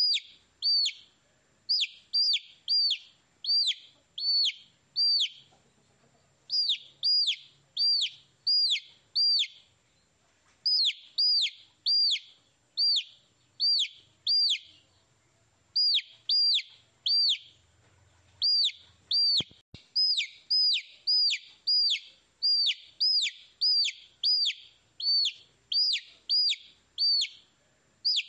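Baby chick peeping: quick, high chirps that each drop sharply in pitch. They come in runs of three to five at about three a second, separated by short pauses.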